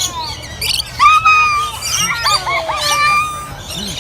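A bird calling: a string of short whistled chirps that slide up and down in pitch, with a couple of longer held whistles.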